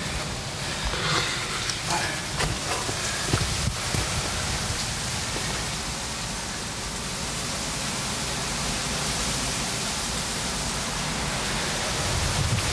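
Water running steadily through a drain pipe and its chamber, a constant hiss, with a few faint knocks in the first few seconds.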